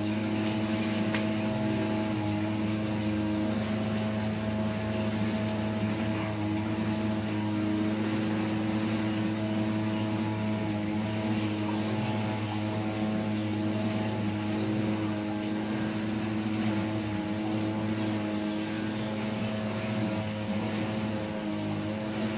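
A steady low machine hum, one unchanging droning pitch with overtones, running without a break.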